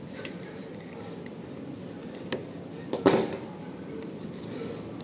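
A few small metal clicks from handling the warm-up regulator's parts, then a loud short clatter about three seconds in as a pair of pliers is set down on a marble worktop, over a steady low background hum.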